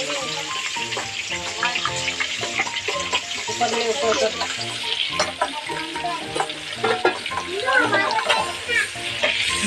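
Boiled eggs sizzling in hot oil in a nonstick kadhai, with a spatula stirring and knocking against the pan now and then.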